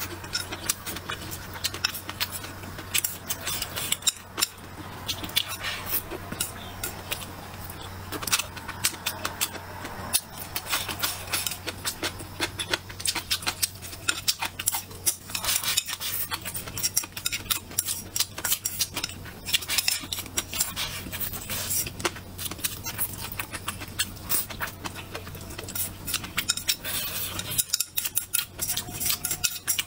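Close-miked eating sounds: chewing and wet mouth smacks in quick, irregular clicks, with utensils tapping against a bowl.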